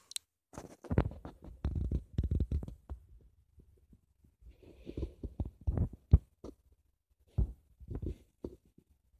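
Fabric rustling and soft bumps in irregular bursts, from a knitted sock rubbing against a camera's microphone, with one sharper knock about six seconds in.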